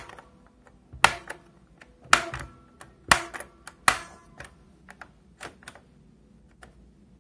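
Piano-key band selector push buttons on a 1970s Philips RH707 radio receiver being pressed one after another to switch bands: four sharp mechanical clicks about a second apart, with fainter clicks between them.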